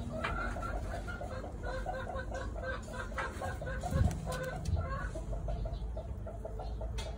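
A hen clucking in a rapid run of short, repeated notes, with a single low thump about four seconds in.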